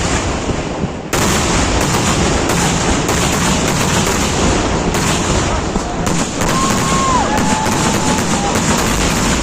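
Fireworks going off in a dense, continuous barrage of rapid crackling bangs, like a long string of firecrackers. A short high whistle sounds about six and a half seconds in.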